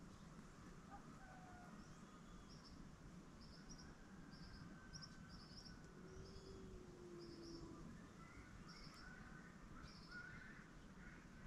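Faint birds calling: a run of short, high chirps in twos and threes, repeating every half second to a second, with a few fainter whistled notes lower down.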